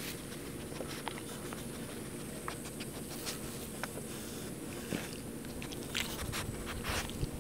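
Shar Pei puppy nosing and mouthing the camera at close range: scattered small clicks and knocks of its muzzle and teeth against the camera over a steady low rustle of fur and handling, with a few sharper knocks near the end.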